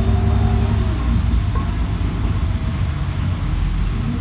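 Temsa MD9 LE city bus heard from inside the passenger cabin while it drives: a steady low engine rumble with a whining tone over it. The whine falls in pitch about a second in and starts to rise again near the end.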